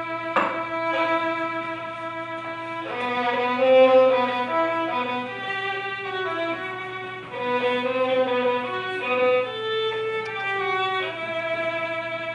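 Solo violin playing a slow melody: a long held note, then a slow tune with two notes sounding together at times, settling on another held note near the end.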